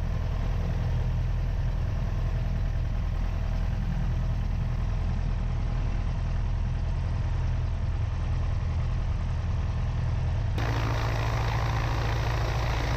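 Cessna 172's propeller engine running at low taxi power, a steady low drone. About ten seconds in, the sound turns abruptly brighter and noisier.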